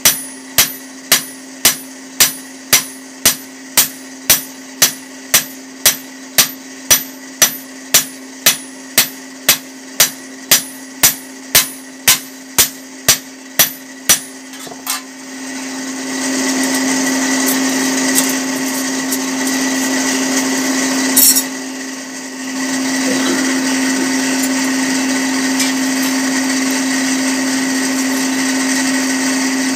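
Hammer blows ringing on red-hot steel chopper blades on an anvil, about two strokes a second, over the steady hum of the furnace's electric blower. About halfway through, the hammering stops and a louder steady machine whir takes over, with one brief metallic clank about two-thirds of the way in.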